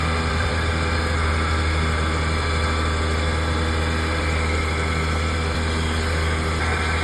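Electric woodworking machine running steadily with a low motor hum.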